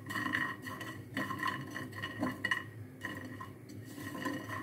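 Dry lentil dumplings (bori) rattling and scraping in a hot nonstick frying pan as they are stirred with a silicone spatula, dry-roasting with no oil: a run of light, irregular clicks and scrapes.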